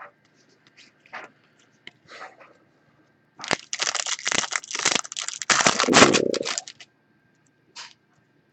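A trading-card pack's wrapper being torn open and crinkled: a dense burst of crackling that starts about three and a half seconds in and lasts about three seconds, after a few light clicks.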